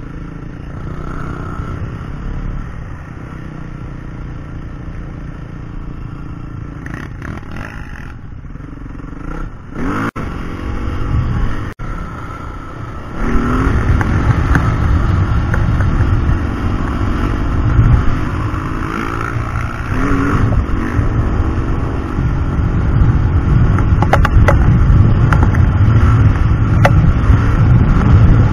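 Yamaha WR450F single-cylinder four-stroke dirt bike engine running under way on the road, revving up through the gears with rising pitch sweeps, with wind noise on the bike-mounted camera. It gets markedly louder about halfway through.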